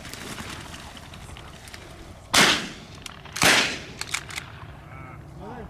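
Two shotgun shots about a second apart, each sharp and loud with a long fading echo across the open field.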